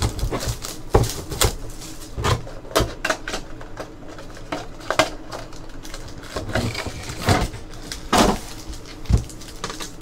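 Hands tearing open a box of 2015-16 Panini Clear Vision basketball cards and pulling out what is inside: irregular crinkles, rustles and clicks of cardboard and packaging, close to the microphone.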